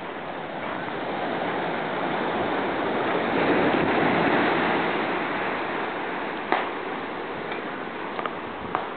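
Sea surf washing onto a sandy beach: a steady rush of waves that swells about halfway through and then eases off, with a few short clicks in the second half.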